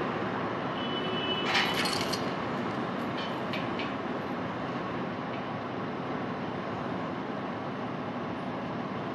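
Heavy diesel machinery running steadily, with a short burst of metallic clanking about a second and a half in and a few lighter clicks a little later.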